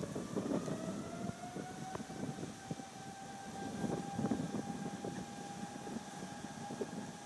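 A Boeing 777-200LR's GE90 engines spooling up at the start of a takeoff roll: a whine that rises over the first second or two and then holds steady. Under it is a gusty, crackling rumble of engine noise and wind on the microphone.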